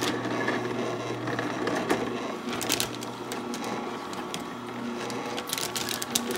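Vertical slow (masticating) juicer running with a steady motor hum as its auger crushes pineapple pieces. Scattered crunching clicks come a few seconds in and again near the end.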